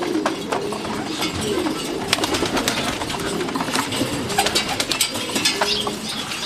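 Many pigeons cooing at once in low, wavering calls, with frequent sharp clicks and scratches over them.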